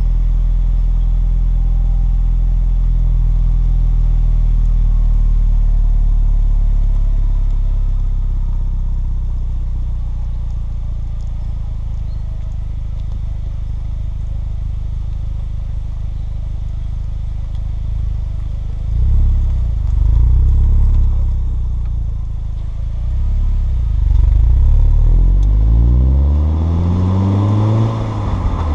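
Audi A4 B6 exhaust note through a Borla catback, idling steadily at first. From about two-thirds of the way through, the engine speed rises and falls several times.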